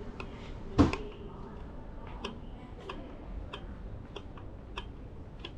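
Footsteps on a hard floor at an even walking pace of about three steps every two seconds, with one louder knock about a second in.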